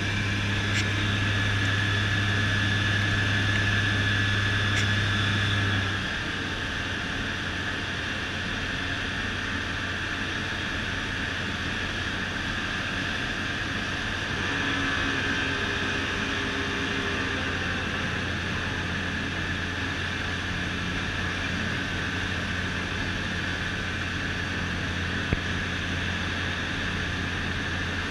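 Rotax 912 iS Sport four-cylinder engine and propeller of an F6 Hydran light seaplane droning steadily in flight, heard inside the cockpit. About six seconds in the drone drops a little in level and its low hum fades, then holds steady.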